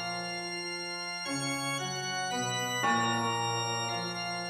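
Background music: sustained organ-like keyboard chords, held steady and changing to a new chord every second or so.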